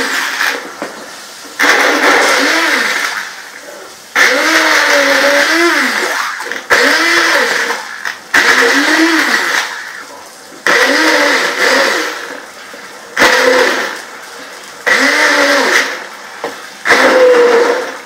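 Handheld stick blender run in short pulses, about eight bursts roughly two seconds apart, coarsely chopping tomatoes in a pot of yogurt gravy rather than puréeing them. Its motor pitch sags and recovers within each burst as the blade meets the chunks.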